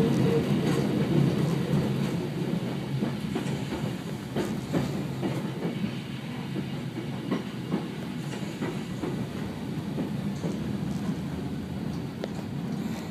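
Hakone Tozan Railway electric train running on its rails, heard from the driver's cab, with a steady rumble and irregular wheel clicks over rail joints and points. The sound grows gradually quieter as the train slows on its approach to a station.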